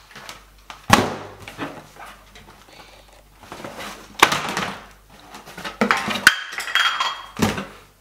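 Knocks and clatter of a cardboard box being handled and shaken, with four sharp thumps spread through it and rustling between them.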